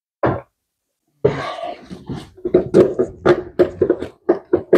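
Plastic air filter box scraping, creaking and knocking against the engine bay as it is shoved and wiggled into place. One short knock comes first, then about a second in a rapid, irregular run of clatter and creaks.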